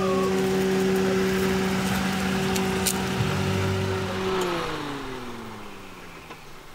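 Toyota car's engine running at a steady pitch, then winding down: its pitch falls and it fades away over the last two seconds.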